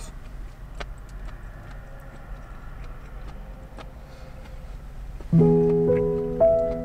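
Background music: a low steady rumble with a few faint clicks, then piano chords come in suddenly about five seconds in, a second chord struck about a second later, each ringing on and fading.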